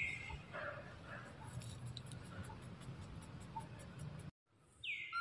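Quiet forest background with faint scattered ticks, and a short whistled call that drops in pitch and then holds steady, heard at the start and again near the end. The sound cuts out completely for about half a second a little after four seconds.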